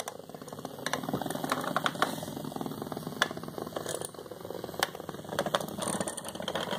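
HexBug Nano vibrating toy bug buzzing and rattling as its bristle legs skitter across a wooden tabletop, with a few sharp clicks as it bumps into the Lego brick walls.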